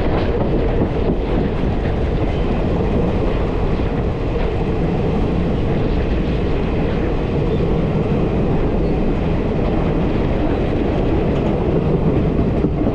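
Passenger express train running, a steady loud rumble and rattle of the coaches on the track.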